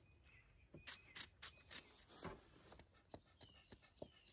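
Faint, quick scrapes of a wire brush on a spark plug, four strokes about a second in. After them come fainter light ticks and clicks of handling, with faint bird chirps in the background.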